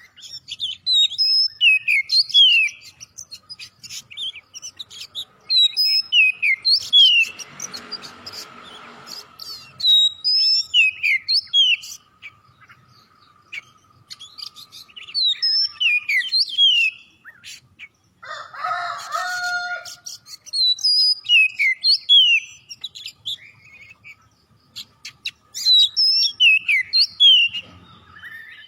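Oriental magpie-robin (kacer) singing vigorously: short phrases of quick, sweeping whistled notes, repeated every few seconds with brief pauses between them.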